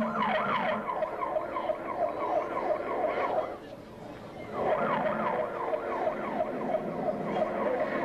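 Siren sounding in a fast yelp pattern: repeated falling pitch sweeps, about three a second, breaking off briefly about three and a half seconds in and then starting again. It is played for two dogs meant to howl along with it.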